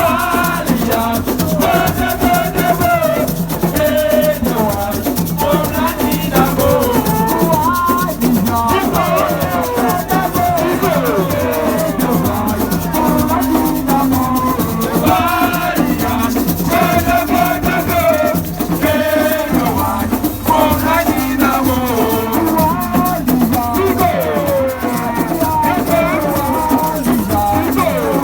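Music with a rattle or shaker keeping the beat under melodic lines that slide up and down, playing steadily throughout.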